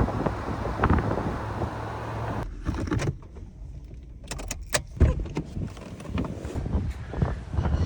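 Steady vehicle rumble and wind noise with a low hum, cut off abruptly about two and a half seconds in. A quieter stretch follows with a series of sharp clicks and knocks, like handling a car door and keys.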